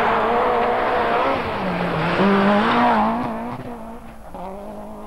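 Rally car engine at high revs as the car passes, its pitch dipping and rising with gear changes and throttle. The sound fades away after about three seconds.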